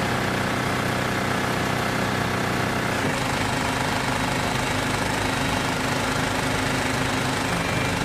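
Telescopic forklift's diesel engine running steadily close by, its note shifting slightly about three seconds in.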